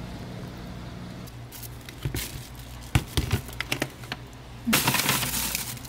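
Plastic food containers and a packaged bag being handled in a freezer: a scatter of sharp clicks and knocks, then a rustle of plastic near the end.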